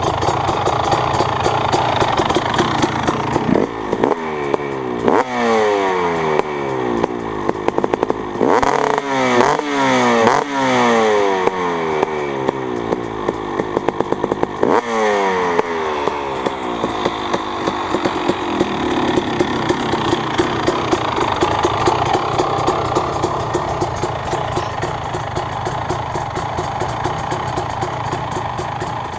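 2017 Husqvarna TC250 single-cylinder two-stroke dirt bike engine, fitted with an FMF and Pro Circuit shorty exhaust, idling, then blipped several times between about 3 and 15 seconds in, the revs falling back after each blip, before it settles back to a steady idle.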